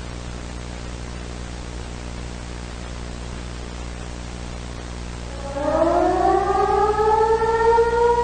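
Steady static hiss with a low hum, then about five and a half seconds in an air-raid siren winds up, rising in pitch and levelling off into a steady wail.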